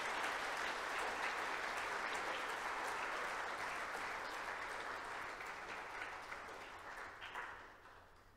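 Church congregation applauding, the clapping dying away over the last couple of seconds.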